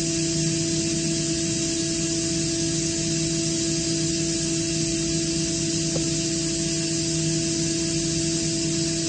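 Atlas Copco GA26VSD+ oil-injected, variable-speed rotary screw air compressor running steadily: an even hiss with a constant hum beneath it.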